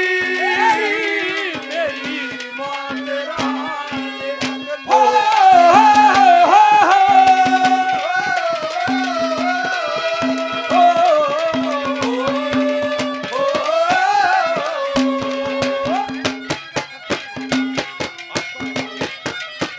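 Live Haryanvi ragni folk music: a tabla beat under a sliding, wavering melody over a repeated low held note. The melody is loudest from about five to fifteen seconds in, then drops out near the end, leaving the drum strokes.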